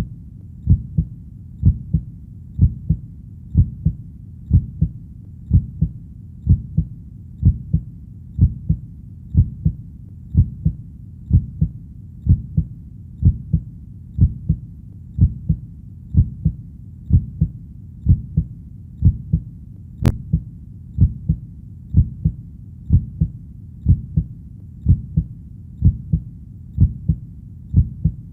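Heartbeat playing steadily at a slow resting pace, about one beat a second. Each beat is a low, doubled lub-dub thump.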